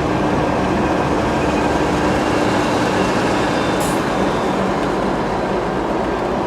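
CN freight train backing slowly along the track, a steady rumble of diesel locomotive and rolling cars, heard from inside a car. A steady hum runs under it and drops out about four seconds in.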